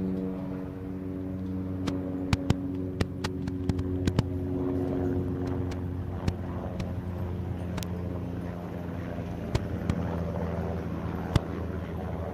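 UH-60M Black Hawk helicopter flying high overhead: a steady drone of rotor and turbine with several steady hum tones. Scattered sharp clicks are heard through it.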